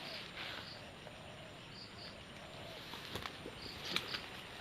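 Quiet outdoor ambience with faint high chirps repeating in pairs, and a few sharp ticks and rustles about three and four seconds in.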